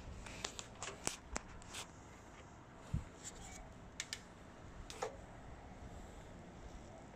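Scattered light clicks and knocks of metal parts as a Femi portable band saw is handled and its saw head moved, with the motor off. There is a duller knock about three seconds in, and a few more clicks follow.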